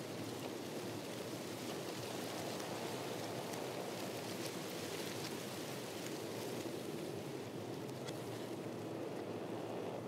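Steady rushing sea ambience, even in level without distinct wave breaks, with faint scattered light ticks.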